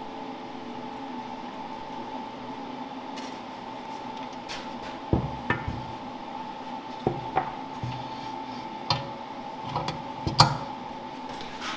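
Metal parts and tools being handled on a workbench: a scatter of knocks and clinks starting about five seconds in, the loudest near the end, over a steady machine hum.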